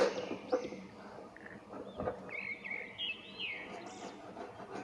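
Small birds chirping in the background, many short high chirps that rise and fall, with a few faint knife taps on a plastic cutting board as a peeled potato is sliced.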